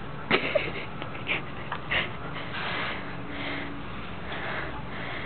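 A dog sniffing at the ground: a few short, sharp snuffs in the first two seconds, then a steadier stretch of noisy sniffing.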